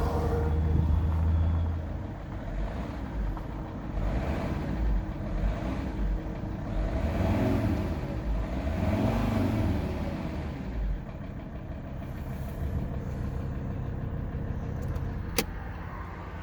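Alfa Romeo 159 2.4 JTDm five-cylinder diesel running, with the knocking noise the owner is chasing, heard from the driver's side. The engine note rises and falls twice around the middle, and there is one sharp click near the end.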